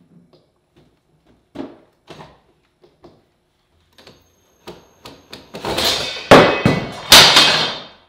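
Cordless drill/driver unscrewing the screws of a refrigerator door's metal trim strip: a few faint clicks and knocks as it is set on the screws, then in the last couple of seconds two loud runs of the driver.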